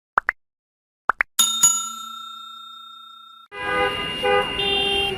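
Two pairs of short rising chirps, then a single bell ring that dies away over about two seconds. Busy street noise with vehicle horns sounding starts near the end.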